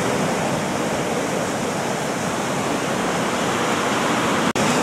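Atlantic surf breaking and washing over a rocky shore, a steady rushing noise. The sound cuts out for an instant near the end.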